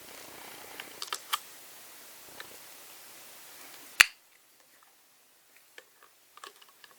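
Small sharp clicks and taps of hands working a wristwatch and small watch-repair tools, with one much louder click about four seconds in, after which the background hiss drops away, then a few faint ticks.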